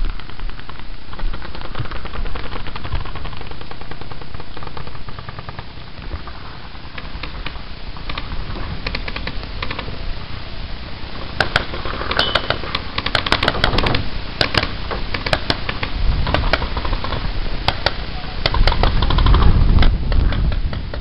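Paintball markers firing: scattered sharp pops from about eight seconds in that thicken into quick volleys, over a low rumble of wind and movement on the helmet microphone.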